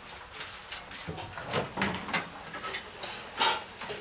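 Irregular knocks, clatter and paper rustling from fish and chips being served up and wrapped in paper.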